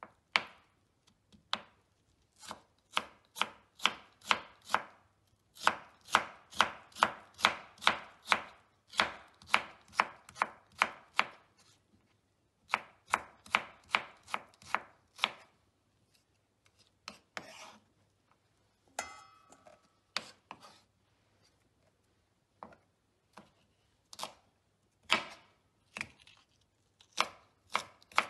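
A cleaver cuts potato into thin julienne strips on a wooden cutting board, in quick runs of sharp knife strokes, about three a second, broken by short pauses. There is a brief ringing sound about two-thirds of the way through. Near the end the cleaver cuts celery.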